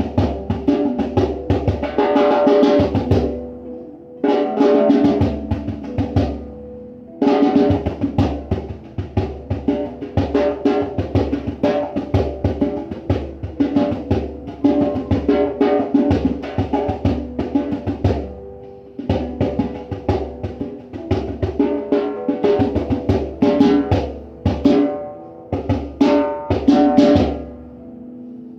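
Hand drum beaten in quick, busy strokes, its pitched tones ringing between hits. The playing stops briefly about 6 seconds and 18 seconds in.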